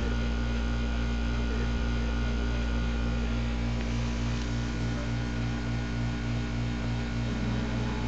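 Steady low electrical hum with an even pulsing throb about four times a second.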